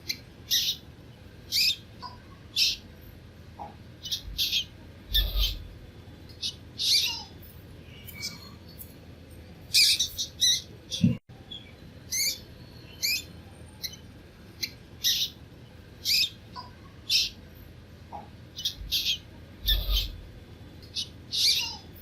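Baby mice squeaking: short, high-pitched squeaks about one or two a second, some in quick clusters, with a brief click about halfway through and a couple of low bumps.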